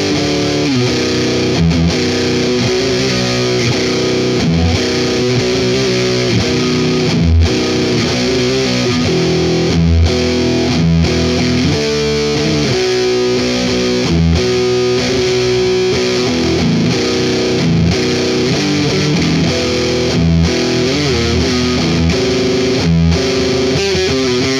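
Electric guitar played through distortion, a metal riff of held chords and changing notes with no break.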